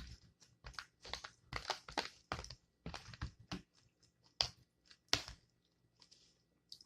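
Close-up chewing and crunching of a mouthful of taco salad with crisp tortilla chips: a quick, irregular run of crunches that thins out after about five seconds.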